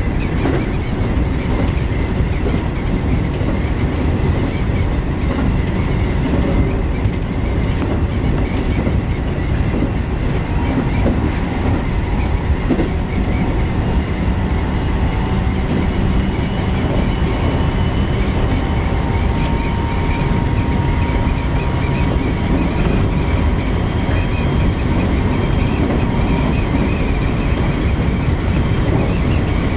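Keikyu New 1000 series electric train with a Mitsubishi IGBT-VVVF inverter, running at speed: a steady, loud rumble of wheels on rail with clickety-clack. Faint steady whining tones ride over it in the second half.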